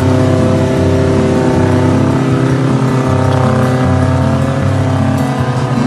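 4x4 off-road vehicle's engine running hard under load as it climbs a steep, muddy slope.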